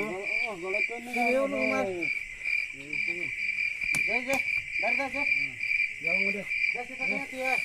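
Crickets chirping in a steady, even pulse, about two to three chirps a second, under people's voices talking in short bursts.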